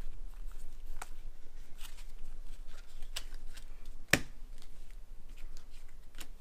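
Trading cards being handled: slid, flicked through and laid down, giving scattered light ticks, with one sharper click about four seconds in.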